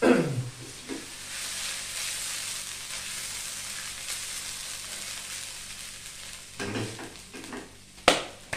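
Beef, onion and garlic sizzling in oil in a nonstick frying pan on a gas burner while the pan is shaken and stirred. There is a loud scraping knock at the start, a steady sizzle through the middle, and the pan clattering against the stove near the end, sharpest about eight seconds in.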